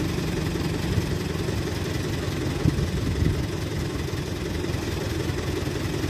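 Heavy diesel road-construction machinery idling steadily, a low engine rumble, with two brief knocks near the middle.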